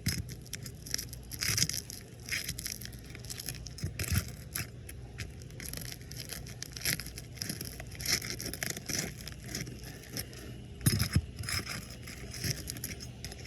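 Metal roofing tool scraping and prying under an asphalt architectural shingle: irregular scrapes and crackles, a louder cluster near the end, over a steady low rumble. The shingle is cracking and tearing under light force.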